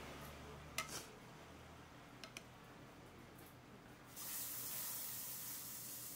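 A sharp double click about a second in and two fainter clicks a little later, then a steady hiss that starts about four seconds in and carries on.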